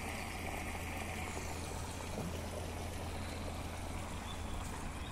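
Floodwater flowing and trickling, a steady rushing noise over a low steady rumble.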